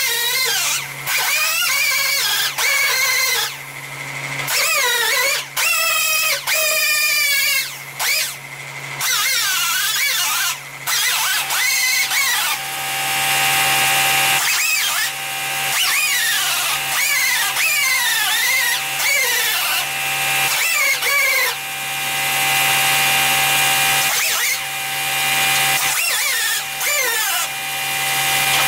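Sander with a 36-grit disc grinding paint off small hail dents down to bare metal, its whine sliding up and down in pitch as it is pressed onto and lifted off each spot. It stops and starts often at first, then runs longer from about halfway, over a steady low hum.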